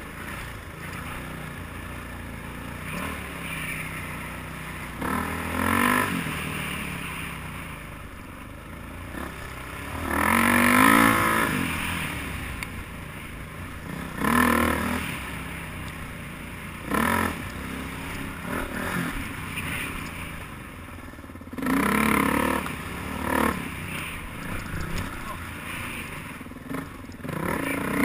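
Dirt bike engine revving up in repeated bursts as the throttle is opened and shut over rough trail, under a steady low drone of the engine running between blips. The longest, loudest rev comes about ten seconds in.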